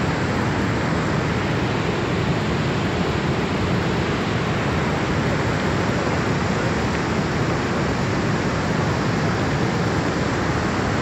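Fast-flowing floodwater rushing in a steady, loud wash of noise with no breaks.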